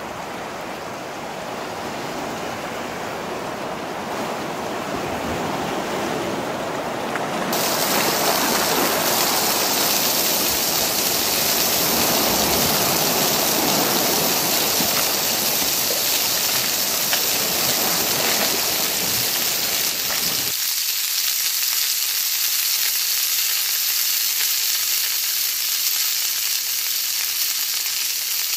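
Small waves washing on a shore for the first several seconds. About seven seconds in, whole tongkol (mackerel tuna) start frying in hot oil in a steel wok: a steady sizzle that carries on to the end, with a lower rushing noise under it until about twenty seconds in.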